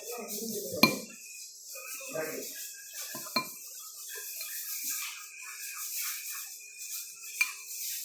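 Eating noodles from a bowl: a utensil clinks sharply against the dish three times, loudest about a second in, between soft mouth sounds of chewing.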